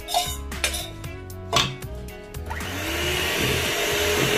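A wire whisk knocks against a stainless steel bowl three times as flour is tipped out, then an electric hand mixer starts a little past halfway and runs steadily, beating the flour into cookie batter. Background music plays underneath.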